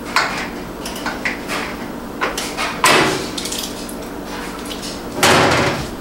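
Clicks, knocks and rattles of hands and a tool working on a microwave oven's metal case, with a louder clatter about three seconds in and a longer, noisier one near the end.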